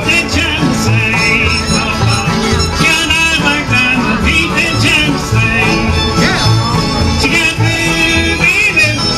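Live band playing bluegrass-style country music, with a bass note on about every other beat under wavering melody lines.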